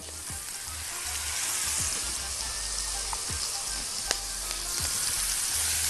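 Adana kebab (minced-meat kofta) sizzling on a hot ridged grill pan. The sizzle swells over the first second or so as another kebab is laid into the pan.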